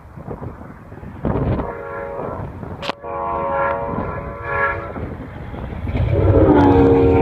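Diesel locomotive's multi-chime air horn sounding long, long, short, long, the grade-crossing signal, as a passenger train approaches. The last long blast is the loudest and drops in pitch as the locomotive comes close, with engine rumble building under it.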